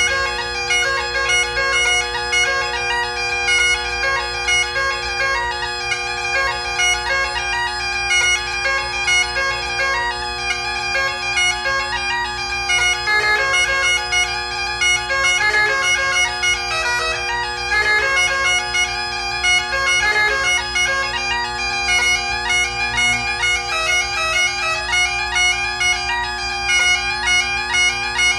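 Great Highland bagpipe played solo: steady drones sounding under a chanter melody of quick, ornamented notes.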